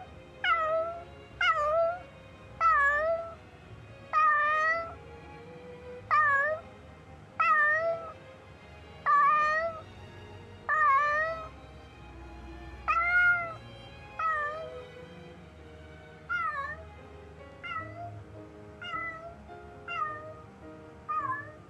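Domestic cat meowing over and over, about sixteen short meows roughly one every second or two, growing fainter over the last several seconds. These are the contented, sociable meows the owners label 'happy meowing'.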